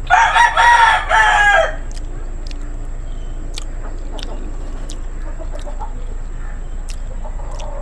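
A rooster crowing once, loud and about a second and a half long, its last note falling in pitch. Faint short clicks follow.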